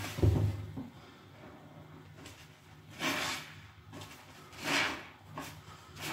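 Sponges soaked in dish-soap foam squeezed by gloved hands over a plastic tub: wet squelching and foam spattering into the tub in separate squeezes, with a dull thump just after the start.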